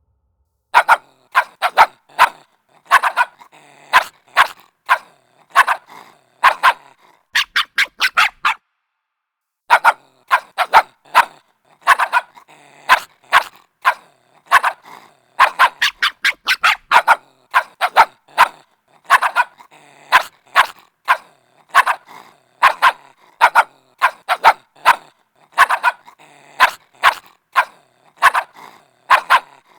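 A puppy barking in short, sharp, high barks, often in quick runs of two to four, with a brief pause about a third of the way through.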